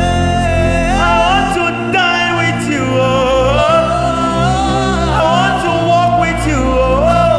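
Slow soaking worship music: a high solo voice sings long, sliding notes without clear words over sustained low chords.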